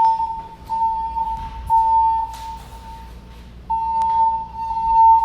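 Fire alarm system sounding its evacuation alert tone between voice messages: a steady tone of about 1 kHz, pulsing on and off with short gaps and a longer pause about three seconds in. A few faint clicks sound over it.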